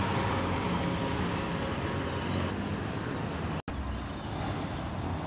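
Street traffic noise: vehicle engines and tyres, loudest at first and easing off. It cuts off abruptly about three and a half seconds in, and quieter traffic noise follows.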